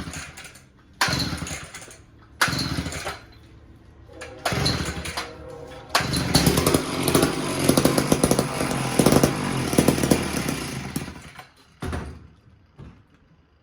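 McCulloch 1-41 two-stroke chainsaw engine being pull-started: a few short bursts, then it catches and runs for about five seconds before dying, with one more short burst near the end. It starts but won't stay running or go high, which the owner puts down to air bubbles in the fuel line.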